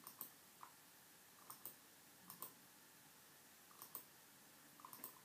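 Faint computer mouse button clicks, most in quick pairs, about six times spread through the moment.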